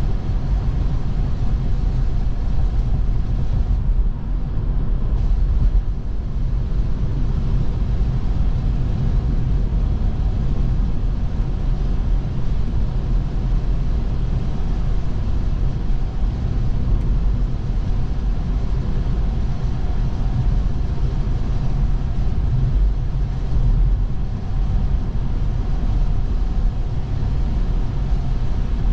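Steady low rumble of tyre and road noise from an electric Tesla driving on a snowy road, with no engine note.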